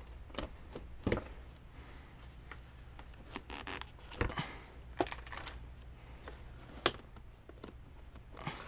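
Hand tools and loose motorcycle parts clicking, knocking and clattering as they are handled, with sharper knocks about a second in, after four seconds and near seven seconds, over a low steady hum.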